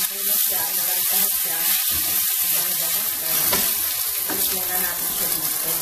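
Red and green bell pepper pieces sizzling in hot oil in a stainless steel frying pan, stirred and pushed around with a plastic spatula that scrapes and taps the pan now and then.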